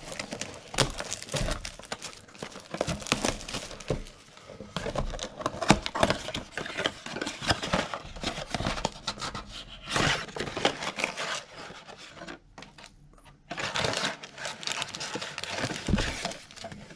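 Plastic shrink-wrap crinkling and tearing as a sealed trading-card blaster box is unwrapped and opened. It comes in irregular rustles and clicks, with a short quiet spell about twelve seconds in.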